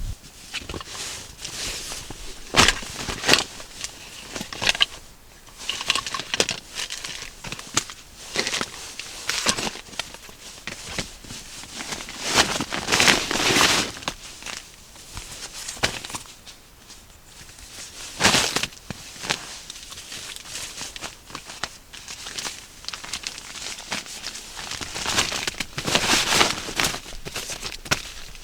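Irregular crinkling and rustling, with scattered sharp clicks, as something is handled, denser in two stretches about twelve seconds and twenty-five seconds in.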